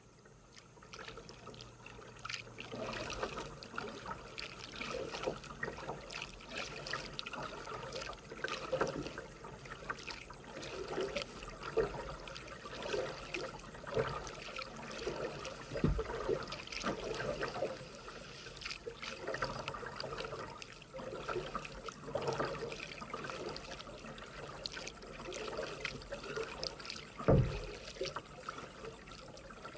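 Kayak paddling on calm water: the paddle blades dip in stroke after stroke, and water trickles and drips off them. Two dull knocks stand out, one about halfway through and a louder one near the end.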